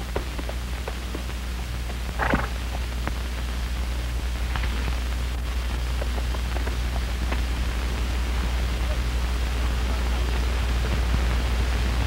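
Steady low hum and hiss with scattered clicks and pops: the surface noise of an old film soundtrack. A brief louder sound comes about two seconds in.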